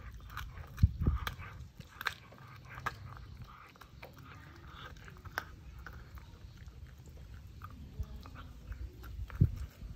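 A dog chewing and crunching on something, with irregular clicks and crackles. There are a couple of louder knocks about a second in and again near the end.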